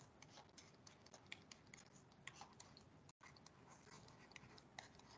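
Near silence, with faint, irregular light ticks of a stylus tapping and writing on a pen tablet.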